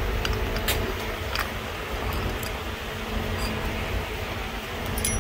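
Steady low mechanical hum of workshop background noise, with a few light clicks near the start and again near the end as the metal pump shaft and housing are handled.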